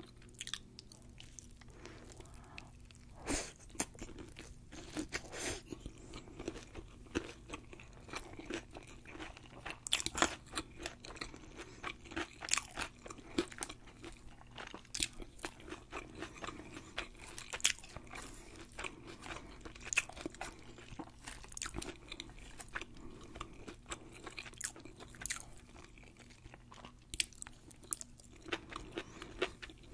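Close-miked eating: chewing and crunching sushi, with many sharp, irregular crunches and wet mouth clicks. Near the end a mouthful of seaweed salad is taken in.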